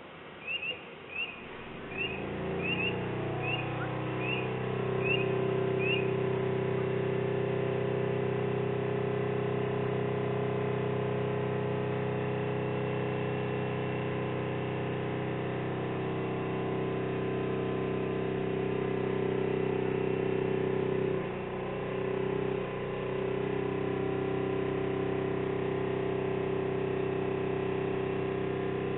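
Diesel engine and hydraulics of a road-rail excavator with a piling attachment running steadily with a strong even hum, building up over the first few seconds and dipping briefly about three-quarters of the way through. A string of about ten short high chirps sounds in the first few seconds.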